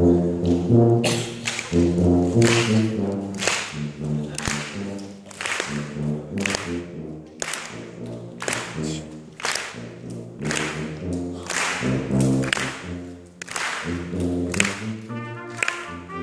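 Brass ensemble with trumpet and tuba playing a slow piece in sustained chords, each note clearly attacked, in a reverberant concert hall. A brighter, higher part comes in near the end.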